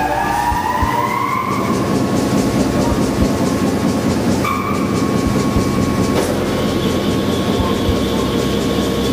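Mechanical briquetting press running: a loud, steady mechanical din with irregular low knocks. A whine rising in pitch levels off about a second and a half in, and a steady hum joins about halfway through.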